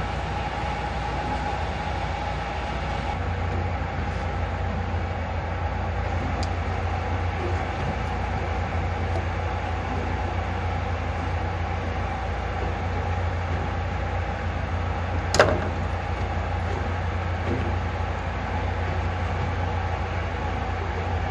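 Steady drone of a ship's machinery: a constant low hum with a steady mid-pitched tone over it. One sharp click comes about fifteen seconds in.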